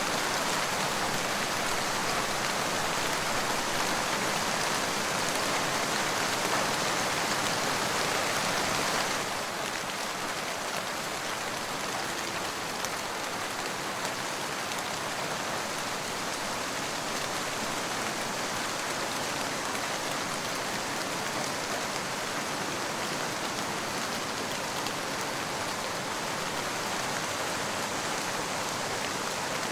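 Steady, dense rainfall, a continuous hiss of drops with no separate events. About nine seconds in it becomes slightly quieter and softer, then continues evenly.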